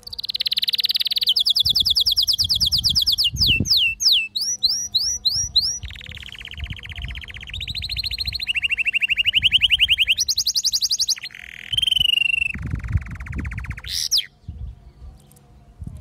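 Canary singing a long song of fast trills, switching to a new roll every second or two, from high thin notes to lower warbling runs and quick rising slurs. The song stops about fourteen seconds in.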